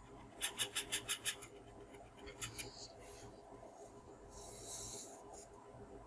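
Faint rapid ticking, about eight small clicks within a second, then a few more clicks and a brief soft hiss near the end.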